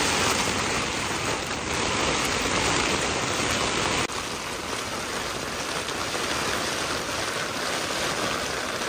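A storm's rain and wind beating on a tent, heard from inside it as a dense, steady rush of noise.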